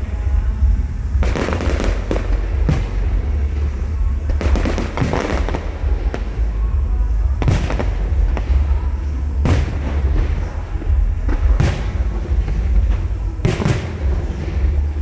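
Aerial fireworks going off one after another, a sharp bang about every two seconds with some longer crackling stretches, over a steady low rumble.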